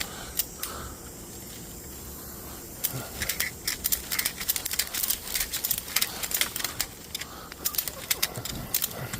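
Ratchet strap being cranked tight around a bundle of dry sticks: a run of sharp, uneven clicks from the ratchet mechanism, starting about three seconds in.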